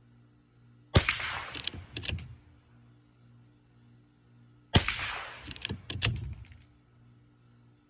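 Two .22 long rifle shots about four seconds apart, each a sharp crack with a short decaying tail, followed by a few lighter clicks.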